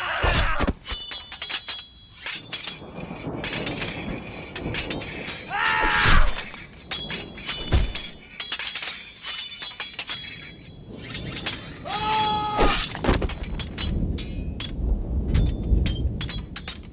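Horror sound-effect track of glass shattering and breaking, with many sharp crashes and tinkling shards, plus two brief pitched cries or squeals partway through.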